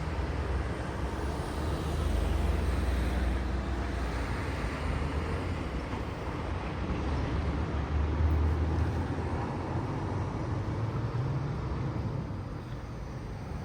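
Road traffic passing: motor vehicles driving by with a low engine and tyre rumble that swells twice, about two seconds in and again about eight seconds in, then eases off near the end.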